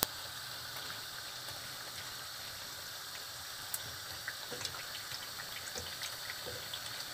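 Bean fritters (akara) deep-frying in a pan of hot oil: a steady sizzle with scattered small pops and crackles, and a sharp click at the very start.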